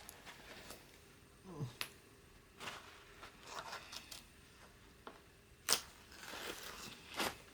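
Adhesive contact masking being peeled off a painted 3D-printed plastic wing panel: intermittent crackly peeling and rustling, with small handling clicks and one sharper click about three-quarters of the way through.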